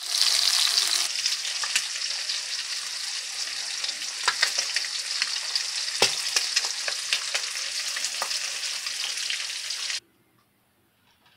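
Turkey steaks sizzling in hot fat in a frying pan, a steady crackling hiss with frequent small pops and one sharp click about six seconds in. The sizzling stops suddenly about ten seconds in.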